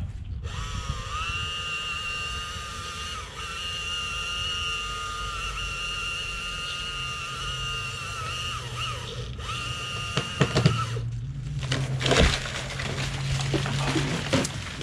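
Top-handle chainsaw running at full throttle through a cut in a cottonwood limb for about ten seconds, its pitch dipping briefly a couple of times, then stopping. The cut-off piece breaks away near the end with sharp cracks and a stretch of crackling and crashing.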